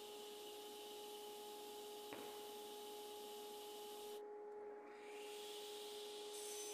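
Woodworking shop machinery running with a steady hum, with one small click about two seconds in. The high hiss drops out for about half a second just past four seconds, then returns.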